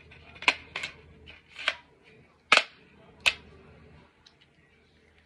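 Sharp clicks and clacks of a MAC 30T being handled, about five of them over the first three and a half seconds, as parts are fitted onto the gun.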